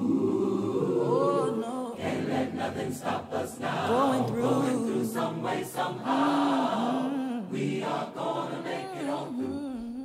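Gospel vocal ensemble singing: several voices holding long notes that arch and slide in pitch, with little bass underneath.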